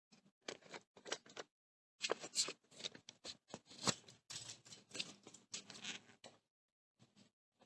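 Irregular clicks, taps and scrapes of parts and tools being handled, coming in clusters, with one sharp click about four seconds in.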